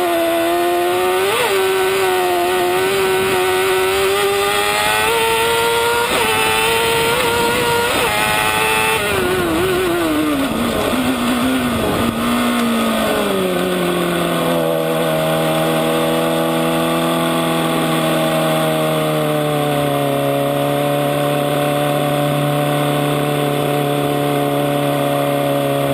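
Kart cross engine heard onboard, revving hard and rising and falling through the gears for about the first nine seconds. The revs then drop away over a few seconds and settle into a steady lower note as the kart eases off.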